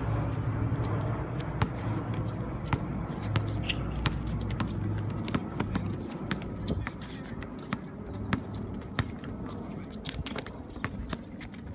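A basketball bouncing on an outdoor hard court with players' shoes scuffing and shuffling, heard as irregular short thuds. A low rumble underneath fades out about halfway through.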